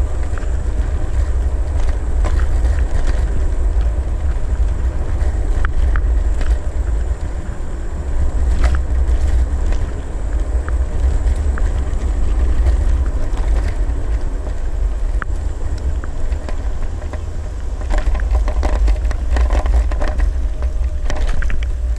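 Wind buffeting the microphone and a steady road rumble while riding a Segway Ninebot ES1 electric kick scooter on asphalt, with scattered clicks and rattles.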